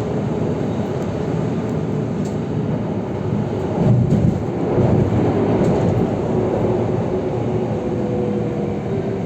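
Singapore MRT driverless metro train running on its track: a steady rumble that swells for a moment about four seconds in.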